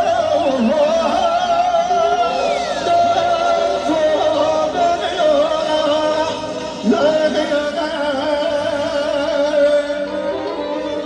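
Live wedding band music with a wavering, heavily ornamented lead melody over steady accompaniment, with a downward swoop about seven seconds in.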